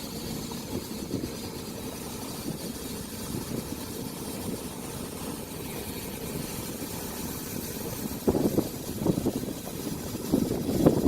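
Boat motor idling at low speed, a steady low rumble, with louder gusts of wind on the microphone from about eight seconds in.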